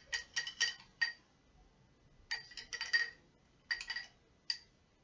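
Paintbrush clinking against a glass jar: about a dozen light, ringing clinks in small clusters.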